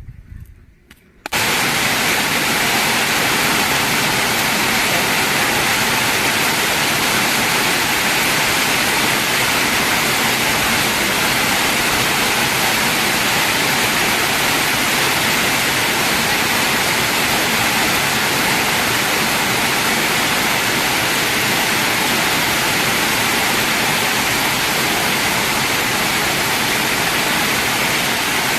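Heavy rain falling in a steady, loud, even hiss that starts abruptly about a second in.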